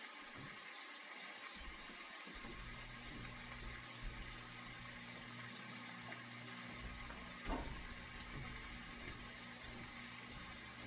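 Faint, steady running water from a kitchen tap, filling a container with water for the pot. A low steady hum joins in a couple of seconds in, with a single click near the middle.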